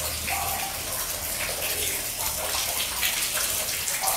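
Steady splashing of running water.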